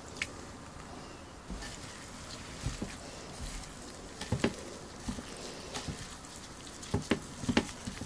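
A plastic-gloved hand mixing crumbled tofu and blanched hijiki seaweed in a glass bowl: soft, wet squishing with scattered light clicks, and a few sharper ticks near the middle and toward the end.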